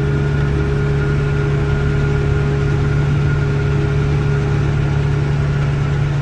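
Large farm machine's engine running steadily at a constant speed, a continuous drone with a steady hum and no rise or fall in pitch.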